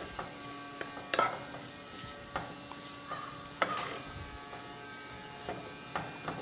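Wooden spatula stirring a chicken and onion filling in a frying pan: irregular scrapes and knocks of wood against the pan, the loudest about a second in and again past the middle.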